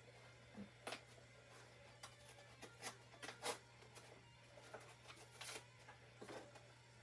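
Wet/dry sandpaper, about 400 grit, rubbing rust off a steel chainsaw guide bar in faint, short, irregular strokes, over a steady low hum.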